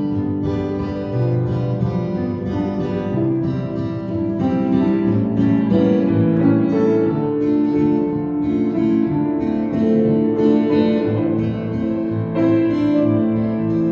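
Live instrumental passage of a ballad with no singing, played on guitar and piano, with sustained chords and a steady pulse of note onsets.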